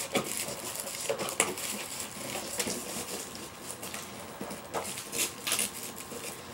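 Packaging being handled while a box is opened: scattered rustles, scrapes and light knocks of cardboard and wrapping.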